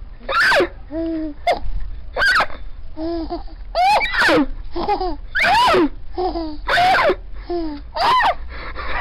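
A man repeatedly making a strange, high, sweeping vocal noise, and a baby laughing in reply each time. They go back and forth about five times.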